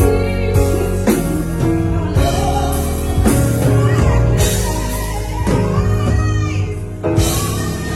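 Live ballad performance: a singer's voice over a full band, with a sharp accent about seven seconds in.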